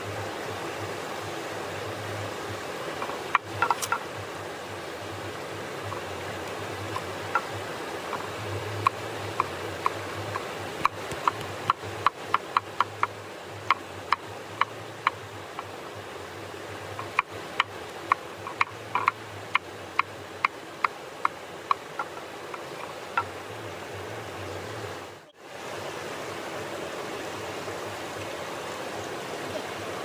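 Cleaver chopping vegetables on a wooden cutting board: runs of sharp knocks, about two a second, stopping a little after two-thirds of the way through. Under them runs the steady rush of a mountain stream.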